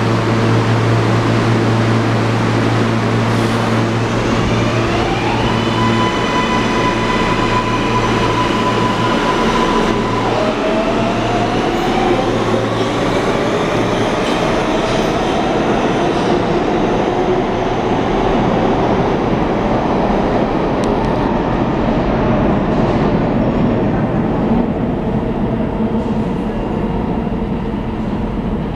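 New York subway train on the L line pulling out of an underground station. Its motor whine climbs in pitch in steps from about five seconds in as it accelerates, over a steady rumble of wheels on the rails.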